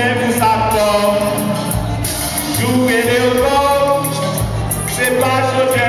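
Hip-hop backing track playing with sung vocals on long, gliding notes over a bass line.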